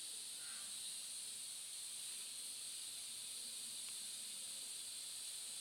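Faint steady high-pitched hiss with no distinct events: the recording's background noise.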